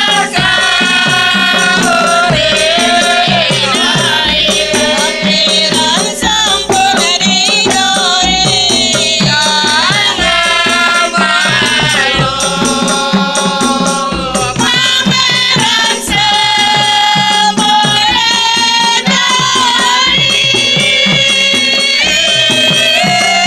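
Women's ayun-ayun group singing an Islamic devotional song together in long, gliding sung lines, with hand-drum percussion keeping the beat underneath.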